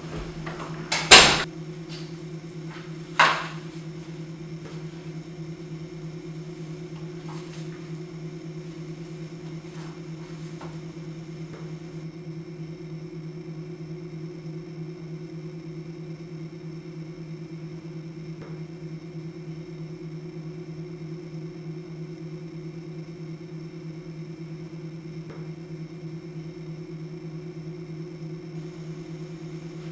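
A loud sharp knock about a second in and a second knock around three seconds, followed by a few faint clicks, over a steady low hum.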